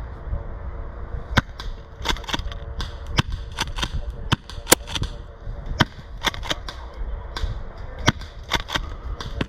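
Airsoft guns firing: irregular sharp pops, single shots and short quick strings, some louder than others, over a low rumble.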